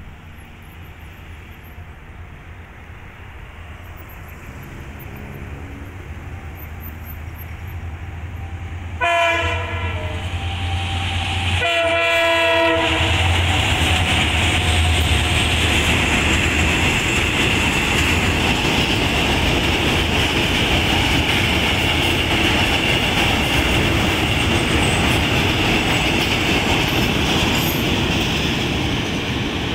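A KTM Class 25 diesel locomotive approaches with its engine drone growing louder, then sounds its horn twice in short blasts near the middle. It passes close by, and a train of freight hopper wagons follows with a steady, loud rolling wheel noise and clickety-clack.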